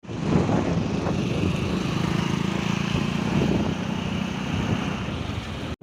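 Vehicle engine running steadily while on the move, with wind rushing over the microphone; it cuts off abruptly near the end.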